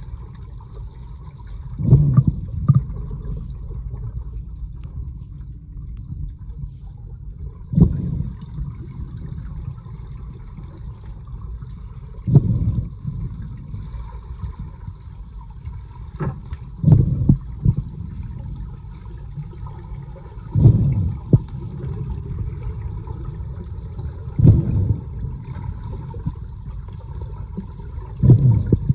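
Underwater sound in a swimming pool: a steady low rumble of water, with a swell of rushing water seven times, about every four seconds, from the swimming strokes.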